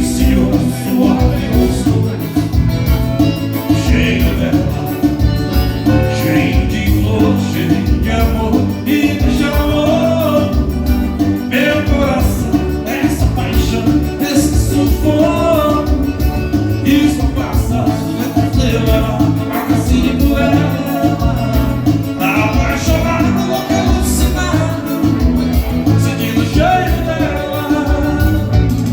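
Live dance band playing a song, with a singer carrying the melody over the band.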